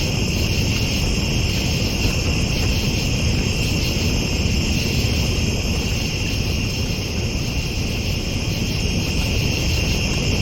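Steady night-time insect chorus, several unbroken high-pitched trilling bands, over a continuous low rumble.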